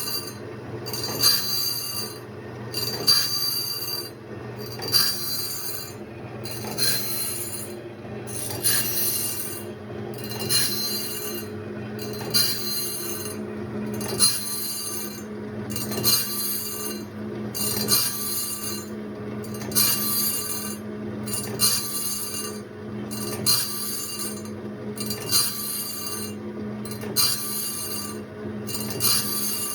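Automatic sawmill blade sharpener running: its motor hums steadily while the grinding wheel meets each tooth in turn, giving a high rasping grind that repeats about every two seconds.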